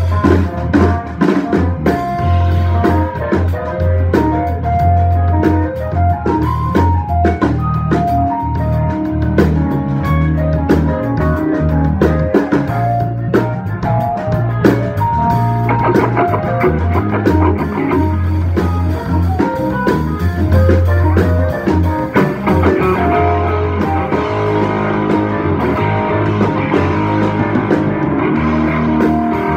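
Live rock band playing an instrumental passage with no vocals: an electric guitar plays a melodic lead of held single notes over a drum kit.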